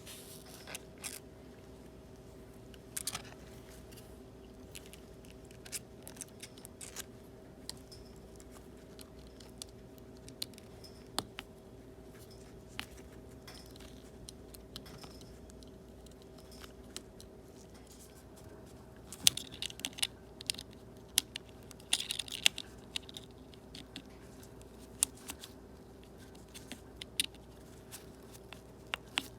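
Small repair tools clicking, tapping and scraping on iPad parts, over a steady faint hum. About two-thirds of the way through come two short spells of crackling.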